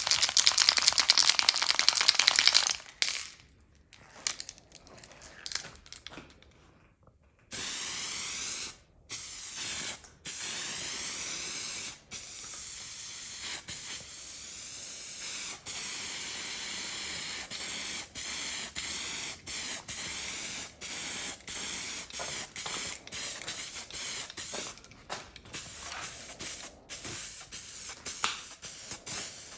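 Aerosol spray can of automotive primer spraying in a hiss: loud for the first few seconds, then after a quieter pause, long spells of hiss broken by many brief stops as the nozzle is let go between passes.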